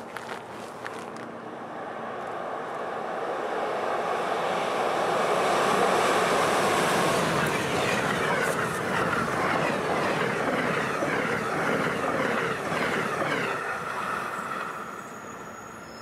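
Amtrak passenger train behind an AEM-7 electric locomotive passing at speed on snow-covered track: a rushing noise that builds as it approaches, peaks about six seconds in as the cars rush by, and fades away near the end.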